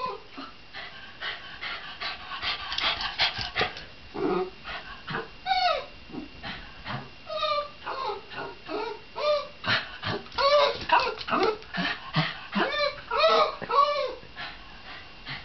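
Shiba Inu yipping and whining: a rapid string of short, high calls that rise and fall in pitch, coming thickest from about ten seconds in.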